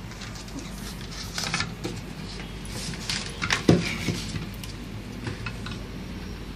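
Plastic Play-Doh toy pieces being handled, a moulding tray and a figure set clicking and knocking against each other and the table, with the loudest knock a little past halfway. A steady low hum runs underneath.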